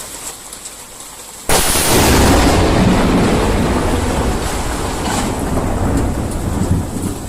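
A close lightning strike's thunder: a sudden loud crack about a second and a half in, rolling on as a heavy low rumble for several seconds. Rain hisses faintly before the crack.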